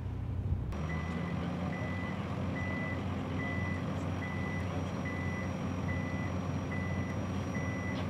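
Vehicle reversing alarm beeping at one steady pitch, about one beep every 0.8 seconds, over the steady running of site machinery engines. It starts about a second in.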